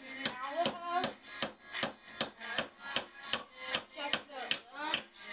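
Hammer driving nails into wood, with steady, evenly spaced strikes about two to three a second.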